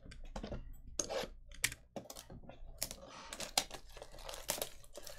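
Plastic shrink wrap crinkling and tearing as it is worked off a cardboard trading-card box, a quick run of sharp clicks and crackles that grows denser near the end.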